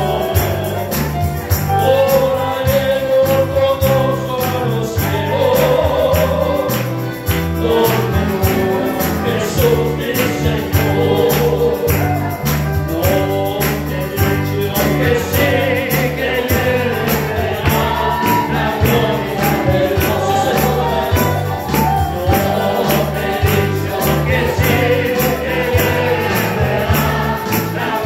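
Christian praise song with group singing over a band: a bass that steps between notes and a steady, evenly repeating percussion beat.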